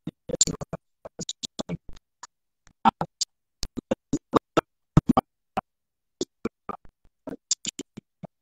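A video call's audio breaking up on a poor internet connection: speech is chopped into many short garbled fragments with silent gaps between them.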